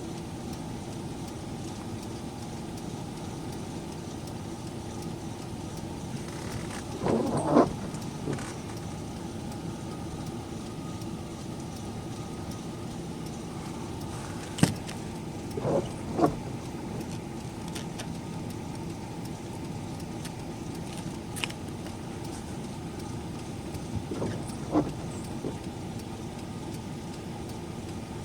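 A car engine runs with a steady hum. A few brief, louder pitched sounds and a couple of sharp clicks break in.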